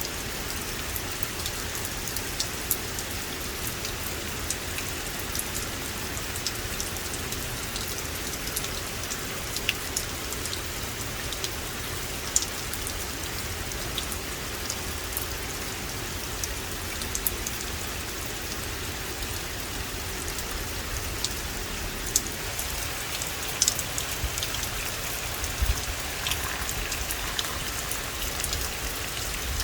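Steady rain falling on a forest: an even hiss with many sharp ticks of single drops landing close by, a few of them louder.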